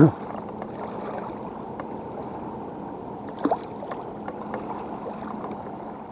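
Small waves lapping steadily at the lake shore, with one short louder sound about three and a half seconds in.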